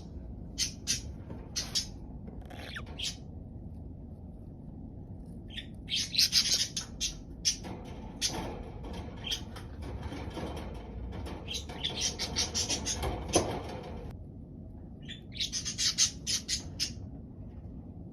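Budgerigars chirping in short bursts of sharp calls, with a stretch of continuous warbling chatter in the middle.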